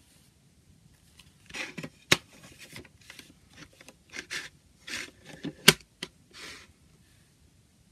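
Paper CD booklet rustling and scraping as it is slid into the lid of a plastic CD jewel case, with sharp plastic clicks; the case snaps shut with the loudest click about three-quarters of the way through.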